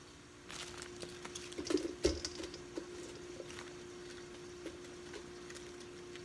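Crisp crackling and snapping of romaine lettuce leaves torn apart by hand, densest and loudest about two seconds in, then thinning to scattered snaps, over a steady low hum.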